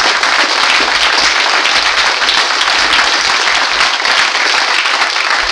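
Audience applauding: many people clapping together, dense and steady.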